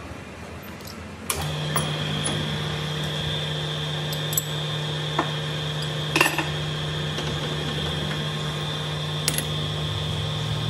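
Metal lathe switched on with a click about a second in, its electric motor and gearing then running with a steady hum and a high whine. A few sharp metallic clinks sound over it, the loudest about six seconds in.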